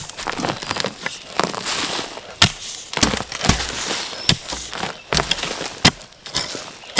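Dry plant litter crunching and crackling, broken by irregular sharp cracks every second or so.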